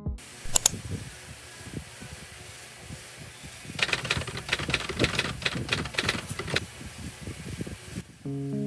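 Hands handling a small box, with a quick run of sharp clicks and rattles lasting a couple of seconds in the middle.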